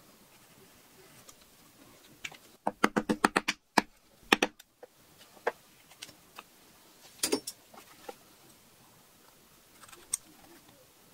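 Leatherworking hand tools clicking and tapping against a work board: a quick run of about eight taps a few seconds in, then a few loud single knocks and scattered lighter taps.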